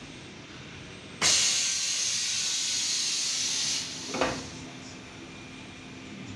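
Plastic-ball production machine releasing pressurized air in a sudden loud hiss of about two and a half seconds that cuts off, followed by a short knock, over a steady machine hum.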